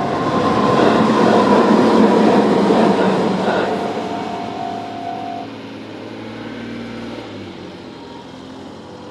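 Tobu 20400 series electric train running over a level crossing, its rumble loudest a second or two in and then fading away. The crossing's warning bell rings with it and stops about five and a half seconds in.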